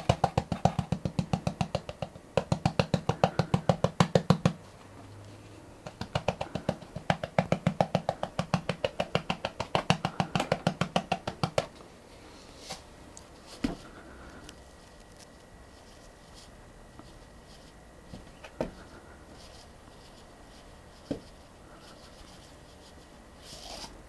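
Rapid, even tapping on a glass jar whose mouth is covered with a stocking, shaking fine dirt through the stocking as a sieve. The tapping comes in two runs of several seconds each, then stops, leaving only a few single faint clicks.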